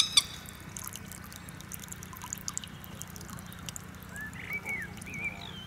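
A sharp double click, then small splashes and trickling water as a hooked fish fights at the surface on the end of a fishing pole.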